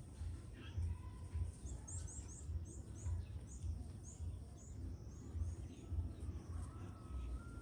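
A small bird calling: a quick run of a dozen or so short, high chirps lasting about four seconds, starting about two seconds in, over a low, uneven rumble.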